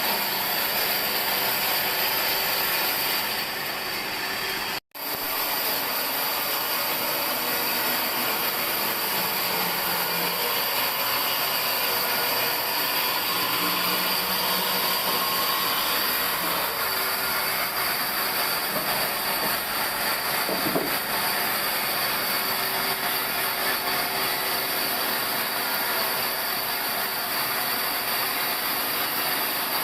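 Sawmill machinery running with a steady, dense mechanical noise; the sound cuts out for an instant about five seconds in.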